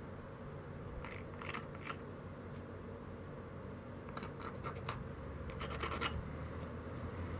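Small round stone rubbed and scraped along the edge of a knapped stone biface, grinding the edge as platform preparation for flaking. Short crisp scratching strokes come in three groups, about a second in, about four seconds in, and again near six seconds.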